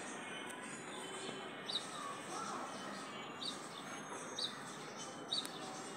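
Four short, high bird chirps, the last three about a second apart, over steady background noise.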